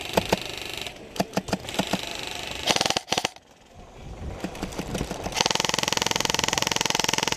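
Airsoft guns firing: scattered single shots and a short rapid burst about three seconds in, then a sustained full-auto burst of about two seconds near the end.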